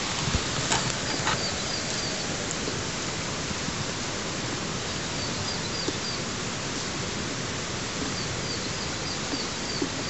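Steady outdoor noise hiss with a small bird giving quick runs of four or five high chirps, three times. There are a few soft knocks in the first second or so.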